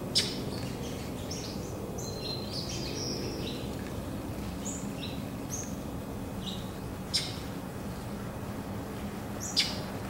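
Small songbirds chirping in short high notes, a quick run of them in the first few seconds and scattered after, over a steady low hum of distant traffic. Three short sharp sounds stand out: one at the start, one about seven seconds in and one near the end.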